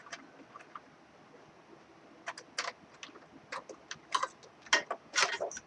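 Irregular light clicks and taps of computer hardware being handled and fitted inside a desktop case, starting about two seconds in.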